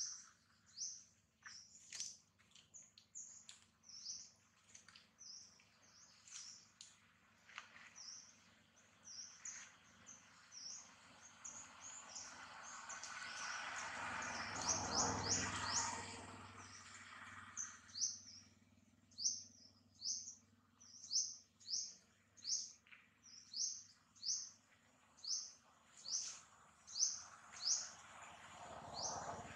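A bird calling over and over: short, high, falling chirps about once a second. A broad rushing noise swells and fades about halfway through.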